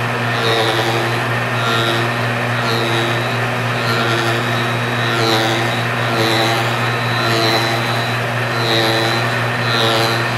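Belt-driven fly cutter on a rose engine ornamental lathe spinning at high speed and cutting into ash. There is a steady motor hum, with a pulse about once a second as the cut comes and goes.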